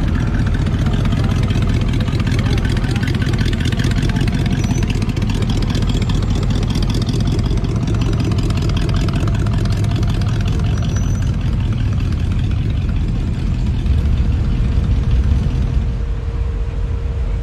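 Hot rod engines running at low speed with a low, steady exhaust note. The sound grows a little louder about fourteen seconds in, then eases off near the end.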